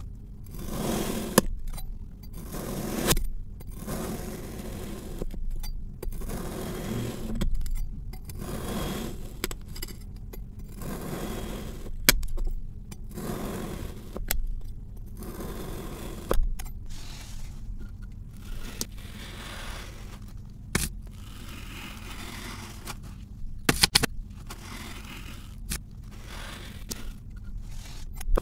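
Knife blade slicing again and again through packed kinetic sand, each cut a soft, crunchy scrape, about one every one to two seconds. A few sharp clicks stand out in the second half.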